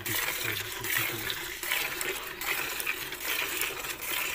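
A cow being milked by hand into a steel bucket: repeated hissing squirts of milk striking the milk already in the pail, at an uneven rhythm.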